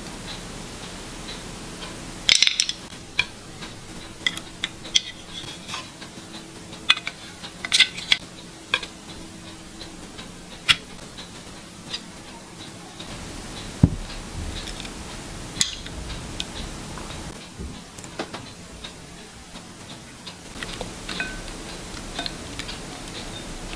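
Chopsticks clicking and tapping against a ceramic plate and abalone shells as food pieces are set down: scattered light clinks, a few louder than the rest.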